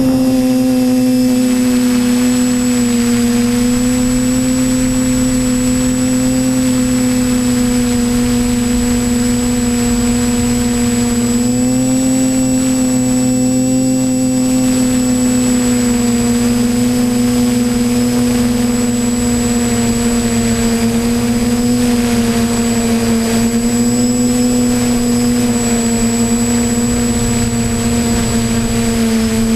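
TBS Discovery Pro quadcopter's brushless motors and propellers humming steadily in flight, heard close up from the camera it carries. The pitch rises a little about twelve seconds in and sags slightly near the end.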